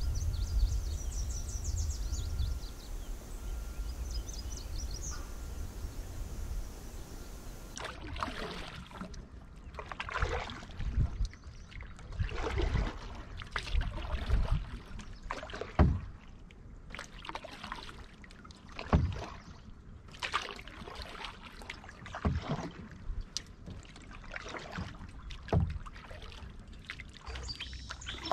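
Canoe paddle strokes in calm lake water, each dip and pull a splash with drips in between, coming every second or two. Before the strokes start, for the first several seconds, birds chirp over a low rumble.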